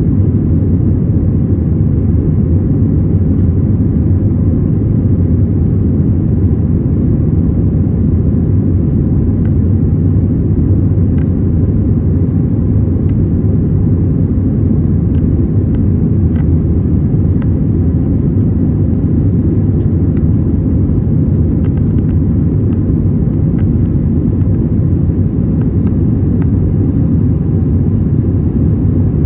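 Jet airliner on takeoff heard from inside the cabin: a steady, loud, low rumble of engines and airflow, with faint scattered clicks.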